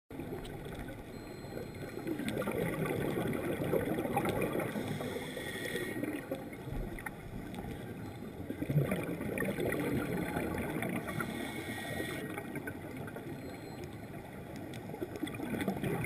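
Muffled underwater noise picked up through a camera's waterproof housing: a steady churning rumble that swells and fades, with a brief higher hiss twice, about five seconds in and again around eleven seconds.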